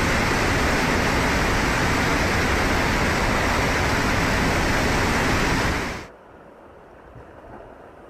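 Fast-flowing floodwater torrent rushing, a steady, even rush of water. About six seconds in it stops abruptly and a much quieter flow of water follows.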